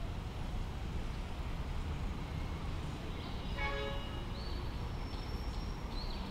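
Steady low rumble of city street traffic, with a vehicle horn giving one short toot about three and a half seconds in.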